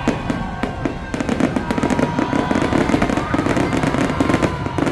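Fireworks going off in a dense, rapid barrage of bangs and crackles, growing thicker about a second in.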